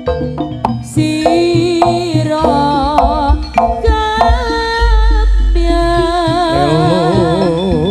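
East Javanese jaranan music from a live ensemble: hand-drum strokes under a wavering melody line. A deep, sustained low tone enters about five seconds in.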